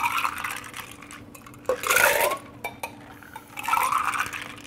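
A cocktail with ice and ginger beer being tumbled: poured back and forth between a stainless steel shaker tin and a glass, with ice clattering and liquid splashing. It comes in three bursts, about two seconds apart.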